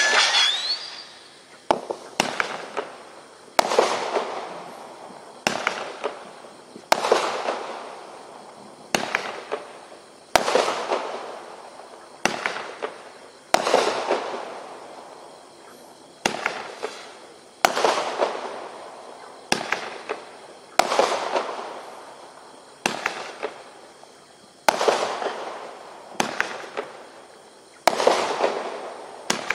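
Bright Star Shriek Freak 22-shot 1.4G consumer firework cake firing. It fires a sharp shot about every one and a half to two seconds, and each shot is followed by crackling that dies away. The last whistles from earlier shots fade out in the first second.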